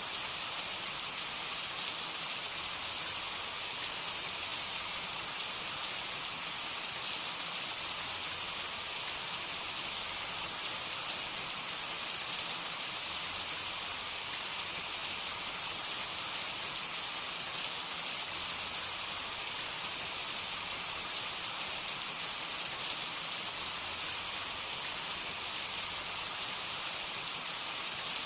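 Food frying in hot oil in a pan: a steady sizzle with small, scattered crackles.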